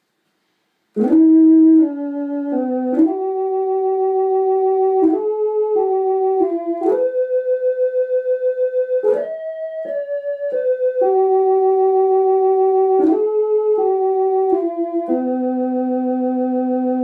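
1970 Orla Carousel electronic keyboard playing a slow melody of held notes, starting about a second in. Many note changes begin with a sharp click, and the tone wavers quickly and evenly in loudness.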